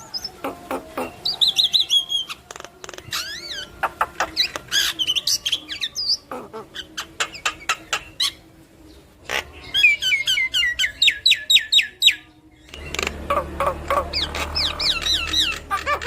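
Javan myna singing a varied, chattering song: whistles that glide up and down, squeaks and sharp clicks, with a fast run of repeated notes about two-thirds in.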